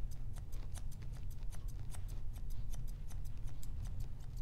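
Steel dog-grooming shears snipping repeatedly, about four or five quick cuts a second, while trimming a Schnauzer puppy's muzzle hair into an even shape.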